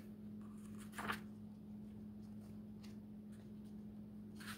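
Pages of a hardcover book being flipped by hand: soft paper rustles, with one louder page turn about a second in. A steady low hum runs underneath.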